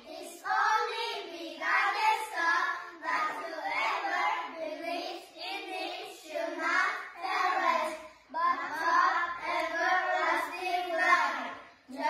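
Young children singing a song together in short phrases, with no instrumental accompaniment.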